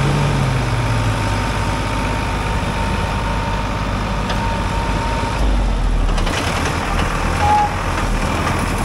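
Vehicle engines running steadily during a recovery pull on a truck stuck in gravel, with a thin steady whine over the first five seconds. The engine noise grows a little louder from a bit past the midpoint.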